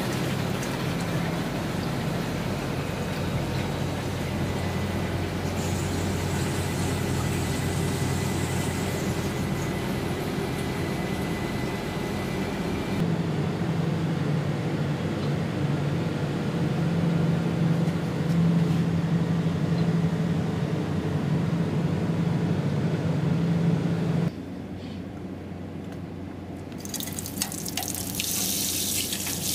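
CNC machining center face-milling aluminum, the spindle and cutter running steadily with a low hum and a hiss like coolant spray. About halfway through the hum changes pitch. A little before the end it drops off sharply, and then a rising liquid hiss comes in.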